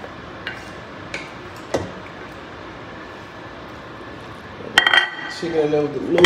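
A metal fork scraping shredded chicken off a ceramic plate into an enamel pot, then stirring and knocking against the pot. There are a few light clicks at first, then a burst of loud, ringing clinks of metal on the pot about five seconds in.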